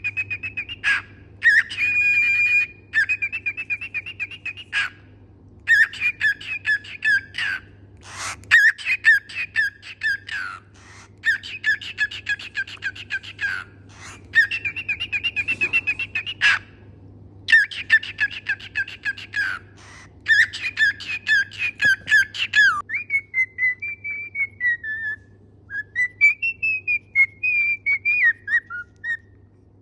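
Pet parrot singing: runs of rapid repeated chirping notes broken by short pauses, then, in the last third, smoother whistled notes gliding up and down.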